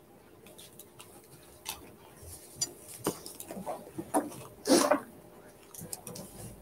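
Scattered light clicks and knocks of small hard objects being handled, with a louder clatter just under five seconds in.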